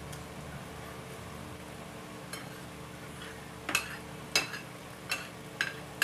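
Metal spoon and fork clinking and scraping on a plate: a few faint taps, then from about halfway on five or six sharp, ringing clinks, over a steady low background hum.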